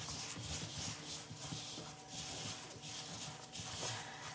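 Gloved hands mixing a dry barbecue rub of granulated sugar, paprika and ground spices in a bowl: a repeated gritty swishing, about two strokes a second.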